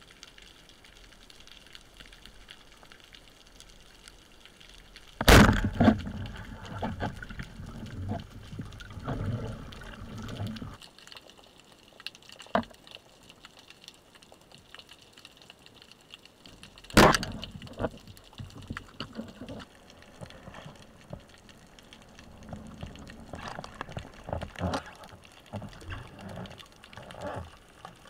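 Speargun shot heard underwater: a sharp crack, followed by about five seconds of thrashing and water noise from the speared fish struggling on the shaft. A second sharp crack comes about seventeen seconds in, then scattered knocks and water noise.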